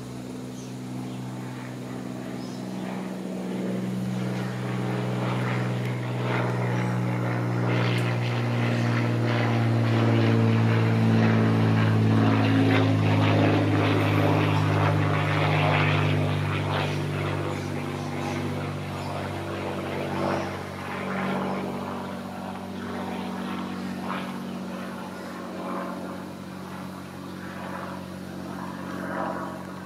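A steady engine drone that grows louder to a peak about halfway through, then slowly fades.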